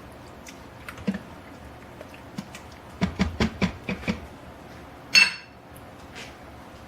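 A spoon knocking and scraping in a stainless steel Instant Pot inner pot while chicken is stirred: a few light clicks, a quick run of knocks about three to four seconds in, then one loud ringing metal clank about five seconds in.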